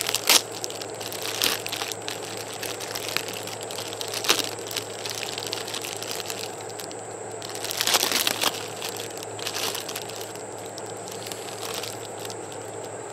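Plastic packaging and bubble wrap crinkling and rustling as they are handled, in scattered short bursts with a louder spell of crinkling about eight seconds in.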